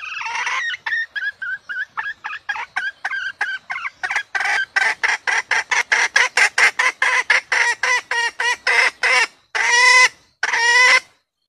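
Red junglefowl hen calling: a fast run of short clucks, about three to five a second, quickening and getting louder about four seconds in, then two longer drawn-out cackles near the end. This is the hen call played to lure junglefowl.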